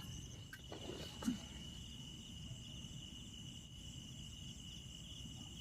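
Crickets trilling steadily at night, one continuous faint high chirring. A couple of soft knocks come about a second in.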